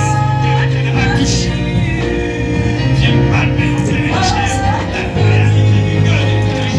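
Church worship band playing with singing over it: a loud, steady bass line under melodic vocals.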